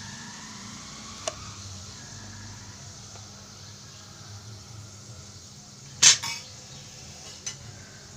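A few sharp clicks over a steady low hum, the loudest a short double clatter about six seconds in.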